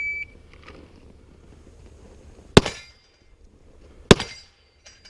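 The end of a shot timer's start beep, then two pistol shots about a second and a half apart.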